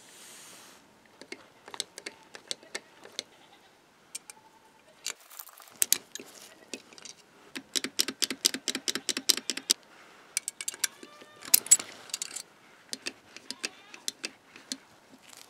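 Small metallic clicks and rattles from a restored 1890s brass ice box latch being worked by hand, its bolt and handle parts snapping and knocking. A quick run of clicks comes in the middle.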